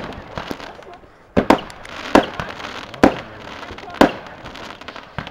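Fireworks bursting in the sky: a series of sharp bangs about a second apart, six or so in all, with smaller pops between them.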